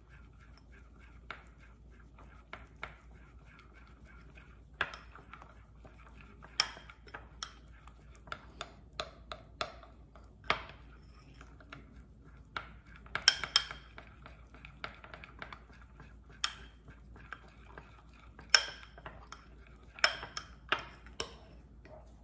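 Metal spoon stirring a thick honey mixture in a glass bowl, clinking irregularly against the glass, with quicker runs of clinks about halfway through and again near the end.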